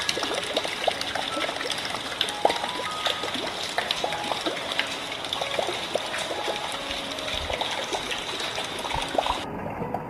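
Rain water splashing and dribbling into plastic buckets: a steady hiss of water thick with small drips, which stops suddenly near the end.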